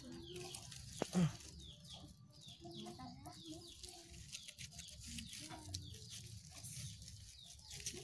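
Chickens clucking and small birds chirping in the background in repeated short calls, with a sharp click just after a second in.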